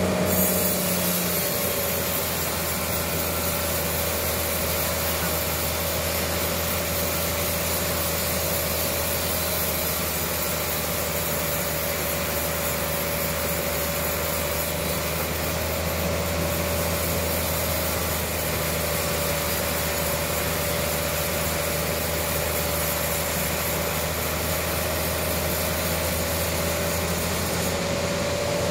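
Large industrial band sawmill running through a trembesi (suar) log, a steady mechanical hum with a held tone and sawing noise. The tone drops slightly about a second in and rises back near the end.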